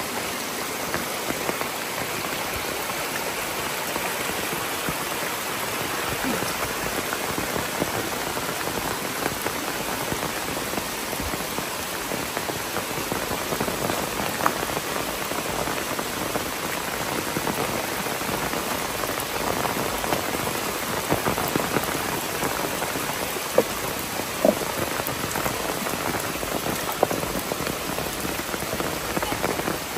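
Very heavy rain pouring down steadily, with a few sharper taps scattered through it.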